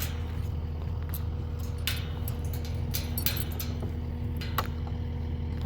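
Steady low machine hum, like an engine running, with scattered light clicks and knocks.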